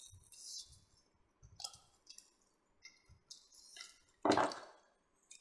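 Wet chewing and lip-smacking of people eating roast pork, in short scattered bursts, with one louder short noise a little over four seconds in.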